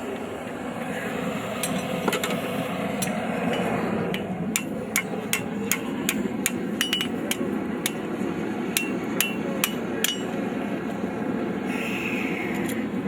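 Blacksmith's hammer striking hot steel on an anvil while a horseshoe file is forged into a snake: a quick run of sharp blows, about two to three a second, several with a short metallic ring. The blows stop about ten seconds in.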